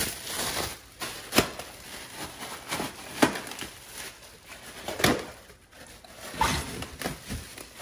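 Great Dane biting and popping inflated plastic air-pillow packing, four sharp pops about one every 1.5 to 2 seconds, with plastic crinkling between them.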